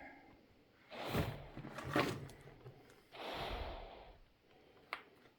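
A person breathing heavily: two long, noisy breaths, with a few sharp knocks in between.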